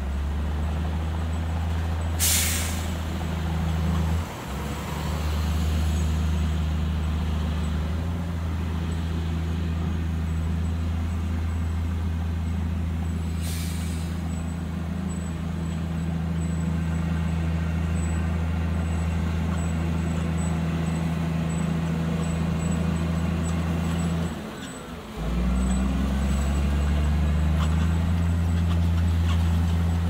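Heavy diesel engine of earthmoving equipment running steadily, with two short sharp hisses of released air, about two seconds in and again about halfway through. The engine sound drops out briefly twice.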